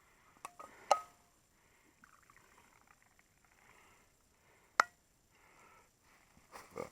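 A few sharp clinks and clicks of tea things being handled, a thermos and cup: two close together about a second in, and the loudest a little before five seconds. There is faint rustling between them.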